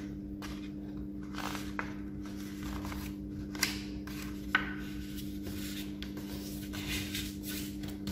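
A sheet of A4 paper being folded by hand and creased flat: paper rustling and sliding on a wooden table in short irregular strokes, with a couple of sharper crackles near the middle. A steady low hum runs underneath.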